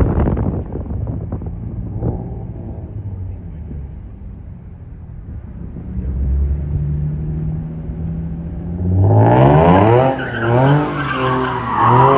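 Nissan 350Z's V6 engine idling, then from about nine seconds in revving hard up and down over a loud tyre squeal, as the car is spun in a donut. A loud noisy burst dies away in the first second.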